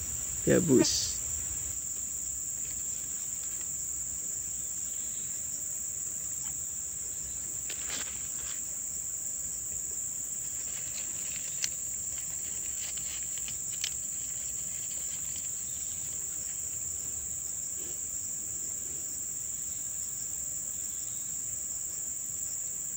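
A steady high-pitched insect chorus that holds constant throughout, with a few faint clicks.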